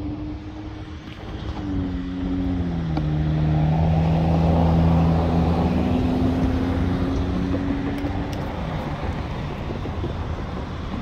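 Diesel engines of a Union Pacific freight train's EMD SD59MX locomotives hum as the train pulls away at low speed, mixed with road traffic. The engine tones shift in pitch, and the sound swells a couple of seconds in before easing off.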